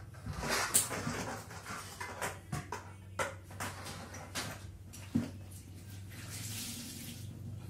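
Plastic parts of a split air conditioner's indoor unit being handled and pried apart: a run of irregular clicks, knocks and scrapes, then a short hiss about six seconds in, over a steady low hum.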